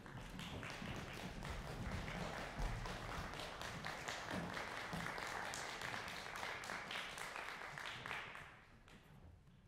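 Audience applause, a dense patter of many hands clapping that dies away near the end.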